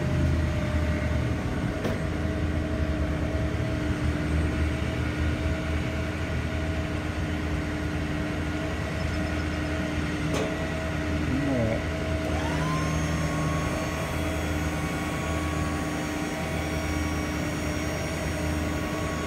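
Ford F-550 diesel engine idling steadily. A higher steady hum joins about two-thirds of the way through, and there is a single click near the middle.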